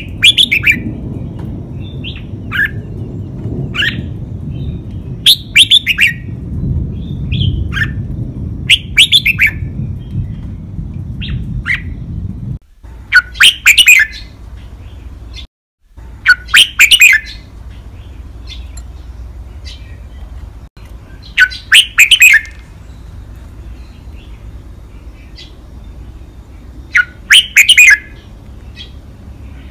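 Red-whiskered bulbul singing its loud five-syllable song, short clear phrases repeated every few seconds. A low rumble runs under the first twelve seconds or so.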